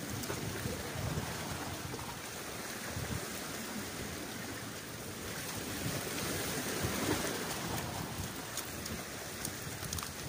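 Wind buffeting the microphone over sea waves washing against breakwater rocks, with a few light ticks near the end.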